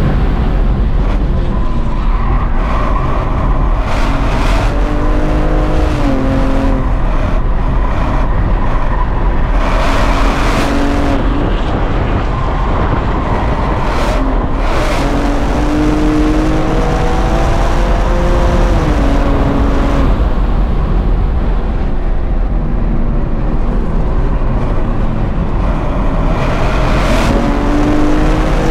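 A 2023 BMW M2's twin-turbo inline-six, heard from inside the cabin under hard track driving. The engine note climbs and falls repeatedly with acceleration, braking and gear changes, over a steady low rumble.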